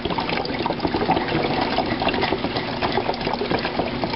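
Hydrogen peroxide being poured from its bottle into a plastic drink bottle: a steady splashing of liquid filling it.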